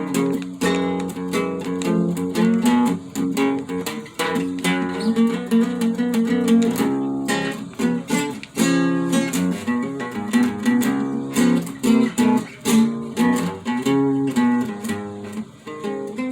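Acoustic guitar played alone between verses: picked and strummed chords in a steady, busy rhythm.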